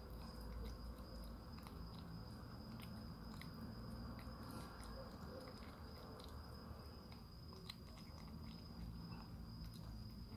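Siamese cat eating canned wet food from a dish: faint, irregular wet smacking and chewing clicks, over a steady high thin whine.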